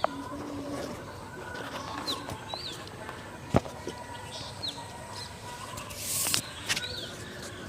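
Birds chirping now and then in short, high, downward chirps over steady outdoor background noise. A single sharp tap comes about three and a half seconds in, and a brief hissing burst a little after six seconds.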